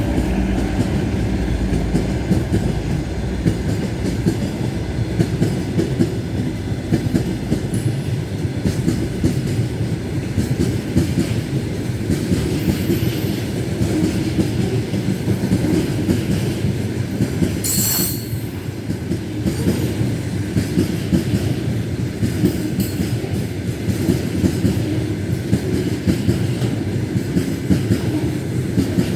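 Wagons of a train rolling past at a steady speed, wheels clattering over the rail joints with a continuous rumble. One brief high wheel squeal comes about two-thirds of the way through.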